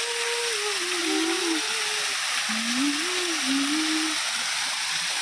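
Waterfall water rushing in a loud, steady hiss. A single low tone slides slowly up and down over it, pausing about two seconds in and returning for a second or two.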